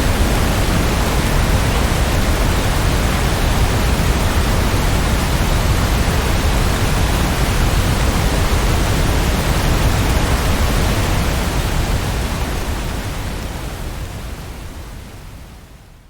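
Steady rain, an even dense hiss, fading out over the last five seconds.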